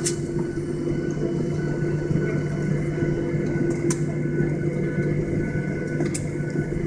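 Cabin noise of a Boeing 737-800 taxiing with its CFM56 turbofans at idle: a steady drone carrying a few steady tones, with a few faint ticks.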